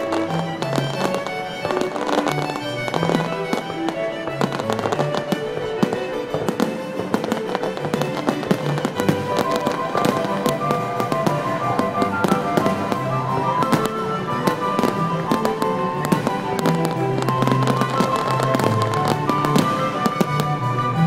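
Aerial fireworks shells bursting and crackling in a rapid, continuous barrage, mixed with instrumental background music.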